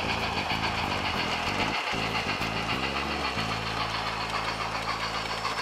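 Sound-equipped HO scale model of Union Pacific 4-8-4 steam locomotive No. 844 running, with a rhythmic chuffing beat over a steady hiss. About three and a half seconds in, the beat settles into a steadier hum.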